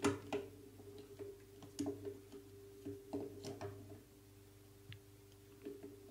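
Light plastic clicks and knocks, about a dozen spread over the first five seconds, as panel indicator lamps and a push-button station are handled, over a steady low hum.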